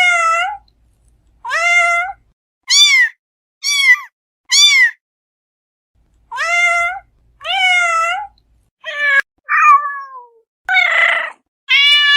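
Domestic cat meowing over and over, about ten separate meows each under a second long. Several in the first half are short, high meows that rise and fall. After a pause of about a second and a half the meows resume, and one near the end is rough and raspy.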